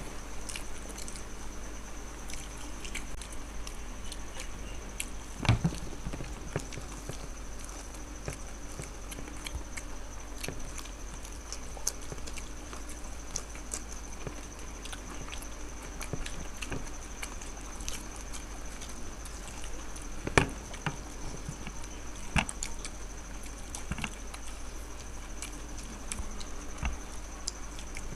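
Eating sounds from a fried egg devil challenge: chewing and mouth sounds with scattered small clicks and taps, and two sharper knocks about five and a half and twenty seconds in. A steady faint high whine and a low hum sit underneath.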